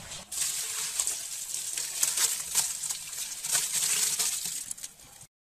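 Crushed black grapes and their juice pouring from a bucket into a large metal pot: a steady wet splashing broken by irregular splats as clumps of mash land.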